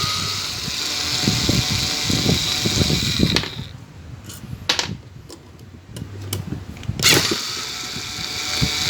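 A small motor-driven tool running with a steady high whine, in two spells: one that cuts off a little after three seconds, and one that starts again about seven seconds in. A few clicks and low knocks fall in between.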